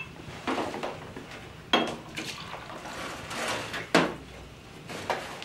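Glass and a wine bottle knocking a few times on a kitchen counter, with short hissy stretches of wine being poured into glasses.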